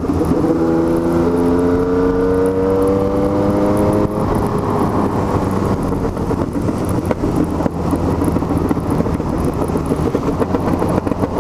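Yamaha MT-09 inline three-cylinder engine accelerating under load, its pitch rising steadily for about four seconds, then the throttle closes and the engine note drops away. After that comes steady wind and tyre noise on the wet road.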